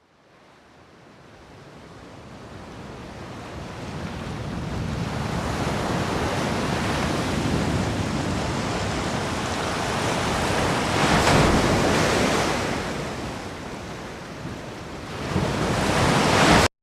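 A rushing noise like surf and wind that builds up from nothing to loud, swells twice, then cuts off abruptly into silence.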